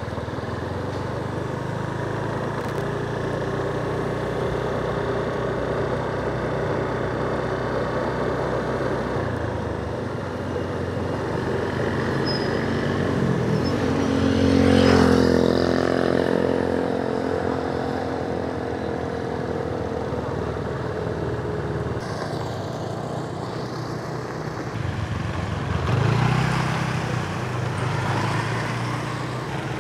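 Motorbike engine running steadily while riding along a road. About halfway through another vehicle passes close by, louder for a moment, its engine note falling as it goes past; a smaller rise in noise follows near the end.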